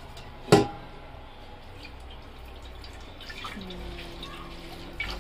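Water dripping and splashing as deity idols are bathed in a water vessel, with one sudden loud sharp sound about half a second in.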